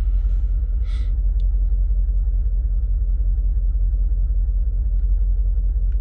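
Mercedes G63's M278 5.5-litre twin-turbo V8 idling with a steady low rumble. It is misfiring on a rough idle, with cylinders 1 and 4 making no difference when their injectors are cut, so it is running on about six cylinders.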